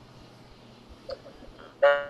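A single bright musical note with overtones that starts suddenly near the end and dies away quickly, over faint background hiss, with a small tap about a second in.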